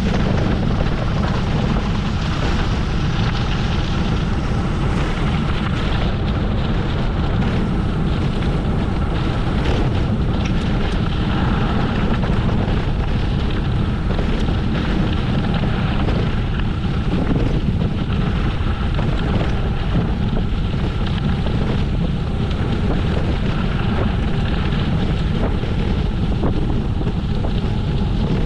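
Steady wind rush on the microphone of a camera riding along on a moving gravel bike, a deep, even rumble without a break.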